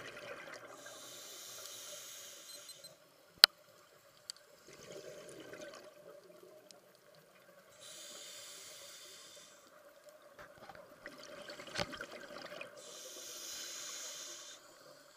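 Scuba diver breathing through a regulator underwater: three long rushes of exhaled bubbles about five seconds apart, with quieter inhalations between them. A sharp click about three seconds in is the loudest sound, and a smaller knock comes near the end.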